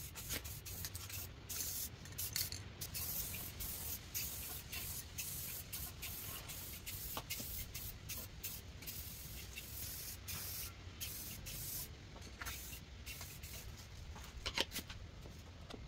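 Aerosol spray-paint can spraying in many short hisses with brief breaks between them, coating a bicycle frame.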